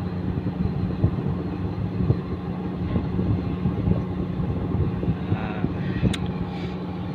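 Ship's diesel engines running: a steady low hum with a sharp click about six seconds in.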